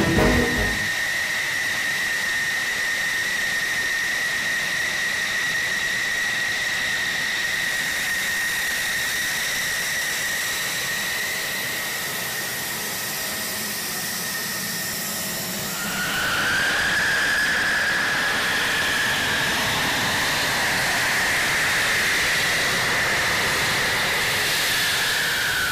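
F-16 fighter jet's engine running on the ramp: a steady turbine whine over a hiss. About 16 seconds in the whine dips in pitch, climbs back and carries on a little louder.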